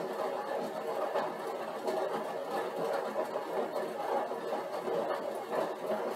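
Upright cycle ergometer running steadily as the rider pedals against a 150-watt load, a continuous mechanical whirr with no pauses.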